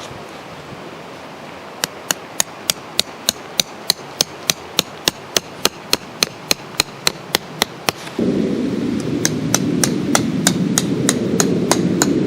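A hammer driving a tarp peg: sharp, evenly spaced blows, about three or four a second. About eight seconds in, a louder low rumbling noise comes in under the continuing blows.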